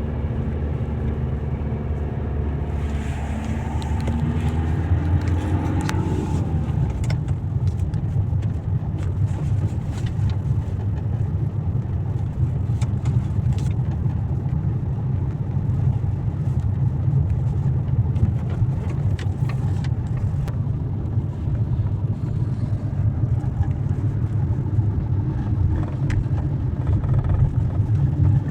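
Renault Grand Scenic 4 driving, its engine note rising over the first few seconds under steady road rumble, with scattered short knocks from going over speed bumps. No suspension squeak is heard, now that the worn silent-block bushings have been replaced.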